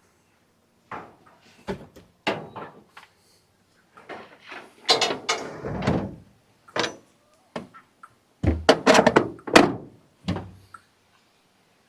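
Irregular thunks, knocks and scraping clatters from feed containers and a door or lid being handled while fetching livestock feed. There is a longer scraping rush about five seconds in and a quick run of loud knocks near the end.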